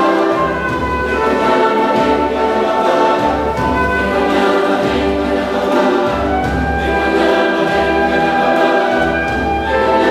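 Mixed choir singing held chords with instrumental accompaniment that includes trumpet, over low bass notes that change about every second and a half.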